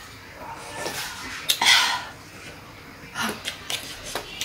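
A person drinking broth from a paper instant-noodle cup, with a loud slurp about a second and a half in. Near the end come several light clicks of chopsticks against the dishes.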